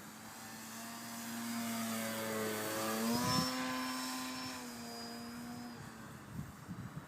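Brushless electric motor and propeller of a 3D aerobatic RC model airplane whining as the plane flies past: it swells to its loudest about three seconds in, its pitch shifting as it passes, then fades away.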